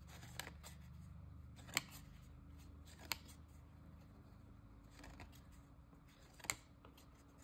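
Topps baseball cards being handled and flipped one at a time: a handful of short, sharp card-stock flicks spaced a second or so apart, over a faint low hum.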